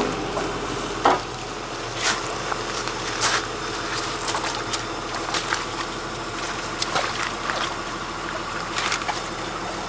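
Water sloshing and trickling, with scattered short splashes, over the steady hum of a large excavator's engine.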